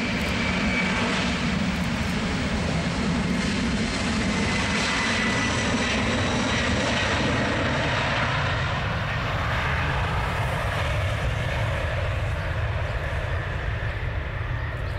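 Boeing 767's twin turbofan engines at takeoff thrust during the takeoff roll: a steady jet rumble with a faint high whine that slowly drops in pitch as the airliner goes past.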